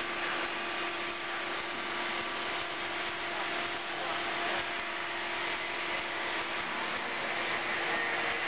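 CNC plate rolling machine running steadily, a constant mechanical hum with a low whine held throughout.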